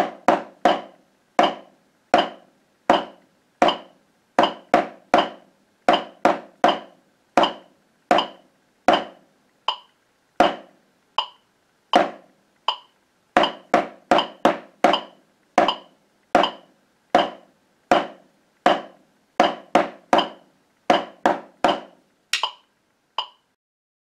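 Drumsticks striking a rubber drum practice pad, playing a basic quarter-note and eighth-note rhythm at 80 beats per minute, with a metronome ticking on the beat. The playing stops about 22 seconds in, followed by two lighter clicks.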